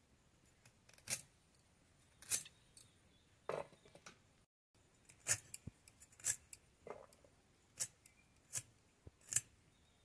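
Boti blade slicing through crisp red amaranth stalks: a string of sharp cutting snaps, roughly one a second, each a short crunch as a piece is chopped off.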